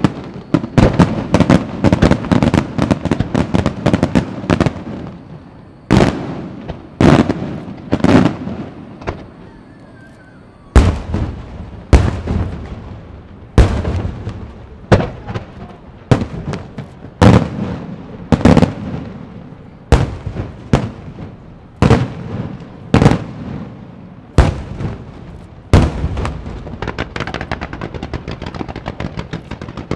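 Aerial firework shells bursting: a quick run of bangs at first, then single loud booms about every second or so. Near the end they give way to a fast rattle of smaller reports.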